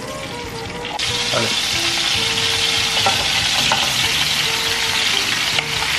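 Sliced onions sizzling in hot butter and olive oil in an aluminium frying pan, the sizzle jumping much louder about a second in as the onions go into the fat. The onions are turned with metal tongs.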